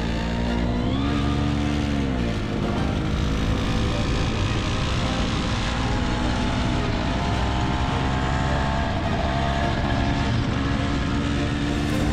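Tomos moped's small two-stroke engine running under way, its pitch rising about a second in and dropping again shortly after, then holding steady with small changes as the throttle is worked.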